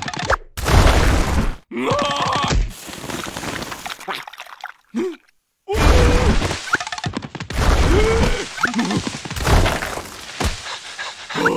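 Cartoon sound effects: loud bursts of rushing, scraping noise as a cartoon larva skids and tumbles through dust, with the character's pitched cries and groans over them. There is a brief break a little over five seconds in.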